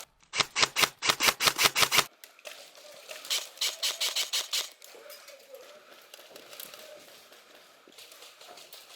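Airsoft gun firing a rapid string of sharp shots, about seven a second, for nearly two seconds. A second, quieter string of shots follows about a second later.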